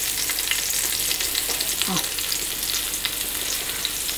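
Paneer tikka skewers of paneer, onion and bell pepper sizzling in a little oil on a flat tawa: a steady hiss with small crackling pops as the paneer browns.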